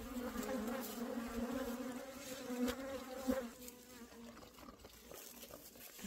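Agitated honeybees buzzing around an opened hive: a wavering, pitched hum, loud for the first three and a half seconds, then fainter. The bees are upset at their hive being opened.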